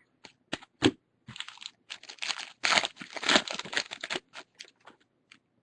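A trading-card pack wrapper being torn open and crinkled for a few seconds, with short clicks of cards being handled before and after.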